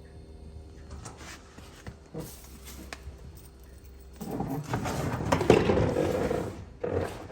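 Hands-on handling noise while working on the car: scattered light clicks, then from about four seconds in a louder stretch of scraping and rustling with knocks that lasts about two and a half seconds.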